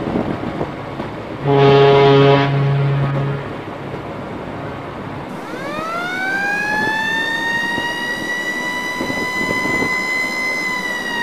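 A ship's deep horn sounds one blast of about two seconds over harbour background noise. Then, after an abrupt change in the audio, a siren-like tone winds up in pitch, holds steady for several seconds and sags slightly near the end.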